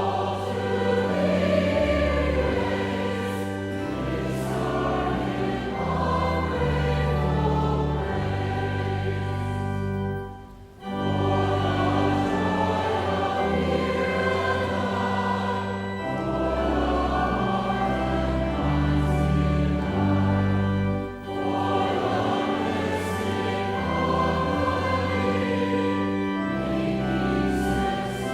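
A choir singing a slow sacred piece over instrumental accompaniment with long held bass notes, with a short break between phrases about ten seconds in and again about twenty seconds in.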